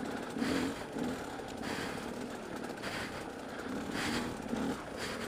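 Dirt bike engine running at low speed over rough ground, the throttle opened in short surges, with a few brief louder bursts about two, three and four seconds in.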